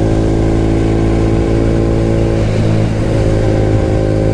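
KTM RC 200's single-cylinder engine running at a steady cruising speed, holding one even pitch, with wind noise on the helmet-mounted microphone.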